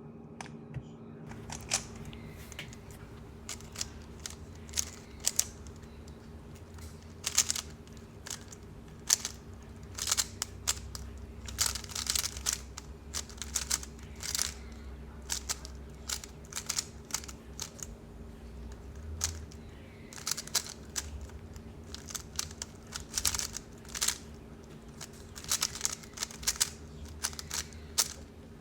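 Plastic Rubik's Cube being turned rapidly by hand during a solve: quick irregular clicks and snaps of the layers turning, coming in flurries with short pauses between.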